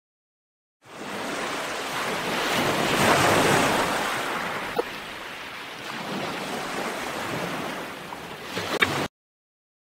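Surf washing on a shore, with wind, coming in about a second in, swelling and then easing off, and cutting off suddenly near the end. A sharp small click about halfway through and a few more near the end.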